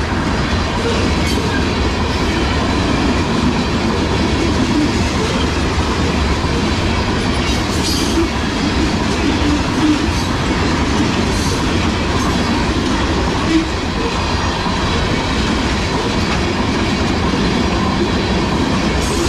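Freight train of tank cars rolling steadily past at close range, a continuous rumble and clatter of steel wheels on the rails.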